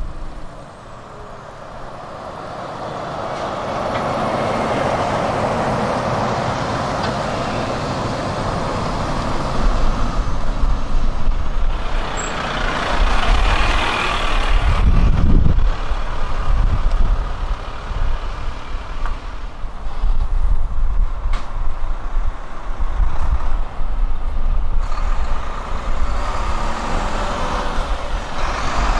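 Renault articulated lorries driving past close by: diesel engine and tyre noise building as one approaches, rising to its loudest around the middle as it passes with a short hiss and a deep rumble, then another lorry's engine pulling away at a junction.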